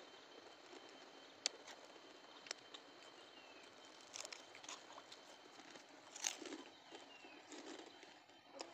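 Quiet riverside ambience: a faint steady background hiss broken by scattered small clicks and taps, the strongest about six seconds in, with a few faint high chirps later on.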